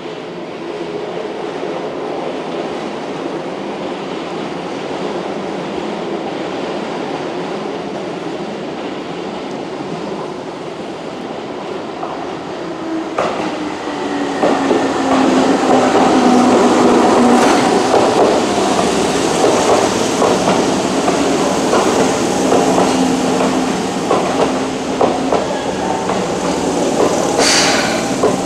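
Steady station hum for about the first twelve seconds. Then a Keihan electric commuter train comes in on the near track: its motor whine falls in pitch and levels off as it slows, and its wheels clatter over the rail joints. A brief high squeal comes near the end.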